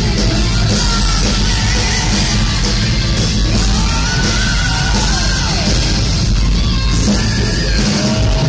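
Power metal band playing live, with distorted electric guitars, bass and drums, and the lead singer singing long held notes over them.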